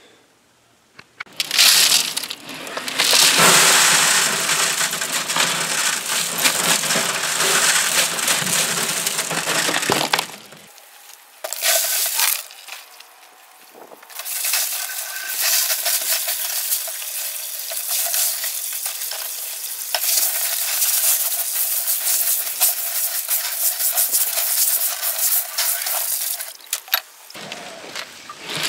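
Tumbled glass pieces being washed and sifted on a wire-mesh screen: a steady hiss with small clinks and rattles of glass. The sound is dense and full from about two seconds in, breaks off briefly around ten seconds, and then goes on thinner and higher until near the end.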